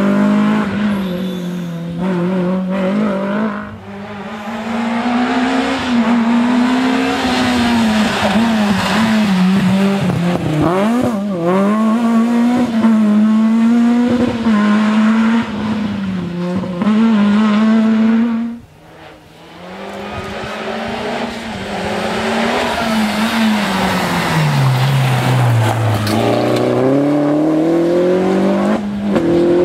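Rally cars' engines revving hard as the cars pass in turn on a tarmac special stage, the note dipping and climbing again through gear changes. The sound drops away sharply for a moment near the middle before the next car builds up; near the end one engine's revs fall steadily for a couple of seconds as it slows, then climb again.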